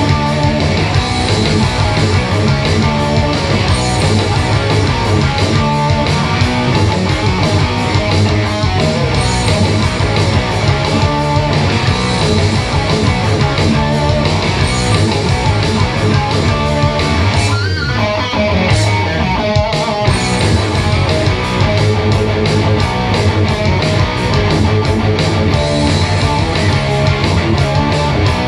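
High-gain distorted electric guitar from a Harley Benton SC Junior with a DiMarzio Tone Zone humbucker, played through the highest-gain channel of an ENGL Thunder amp. It plays along to a backing track of drums and bass, in a heavy rock style.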